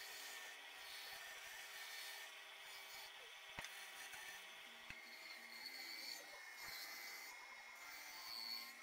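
Band saw running with a steady whine while its blade cuts into a small stick of wood, with two sharp clicks about a second apart near the middle.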